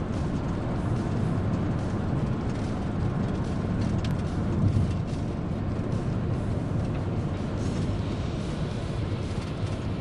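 Steady low road and engine noise from a Ram Promaster City camper van driving along, with a brief tick about four seconds in.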